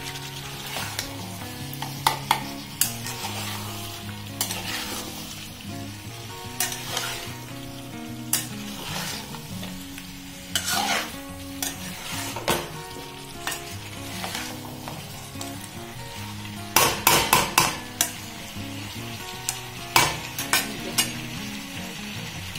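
Steel spatula stirring and scraping cubed pumpkin and potato through a masala in a steel kadai, with irregular clinks and scrapes against the pan and a dense run of them about three quarters through, over the food sizzling as it fries.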